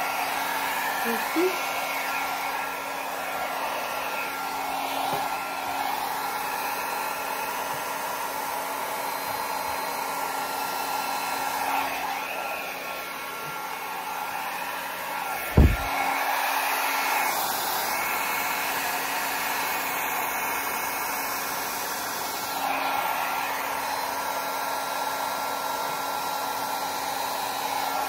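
Small handheld hair dryer running steadily, blowing a constant stream of air. A single brief thump about halfway through.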